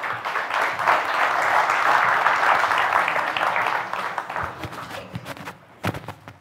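Audience applauding, strong for about four seconds and then dying away, followed by a couple of sharp knocks near the end.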